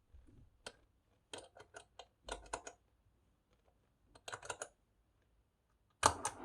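Electric guitar through a distortion pedal: muted strings scratched in short clicking groups, then a chord struck about six seconds in that rings on.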